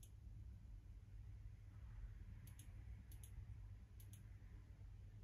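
Faint computer mouse clicks: three quick double-clicks in the second half, over a low steady hum.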